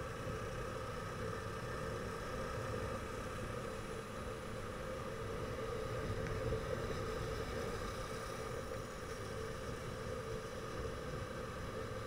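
Motorcycle engine running steadily at cruising speed, a constant hum mixed with wind and road noise, heard from on the moving bike.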